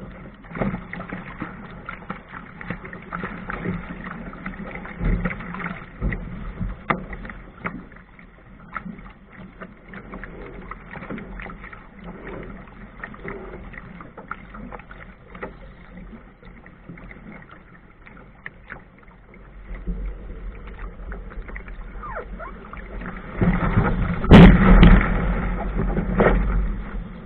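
Water splashing and slapping against a small sailboat's hull as it sails through choppy water. About 23 seconds in it grows louder as the boat runs into breaking surf, with a sharp knock shortly after.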